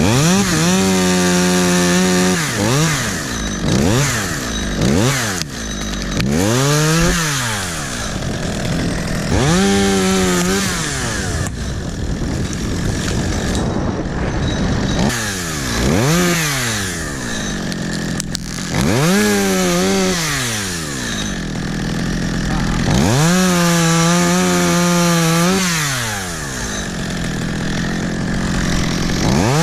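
Two-stroke chainsaw revving up and down over and over. It holds at full throttle for two or three seconds three times, with short blips between, dropping back toward idle after each.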